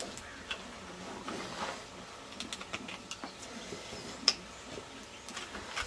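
Farrier's hand tool scraping and paring the sole of a horse's hoof: irregular light scrapes and clicks, with one sharper click about four seconds in.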